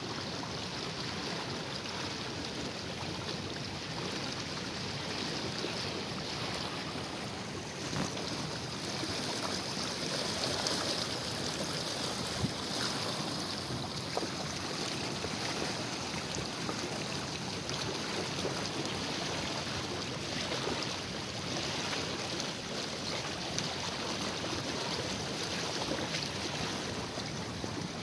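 Steady rush of water from a wide concrete-lined canal running high, with a few faint knocks.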